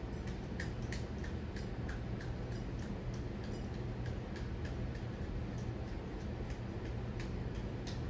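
Hunter Stratford 52-inch ceiling fan running on high: a steady low motor hum with a regular light ticking, about three ticks a second.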